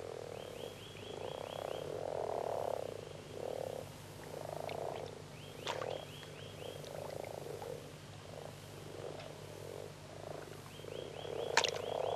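Chorus of male common frogs calling: a low, soft growling in overlapping bursts of about half a second each. The males' internal vocal sacs give only this growl rather than a loud croak. A faint, rapid, high ticking trill comes in three times, over a steady low hum.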